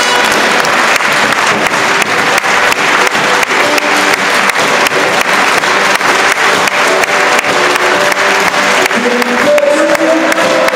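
Large audience applauding steadily, dense clapping throughout. Scattered notes from the band's instruments sound under the clapping, a little clearer near the end.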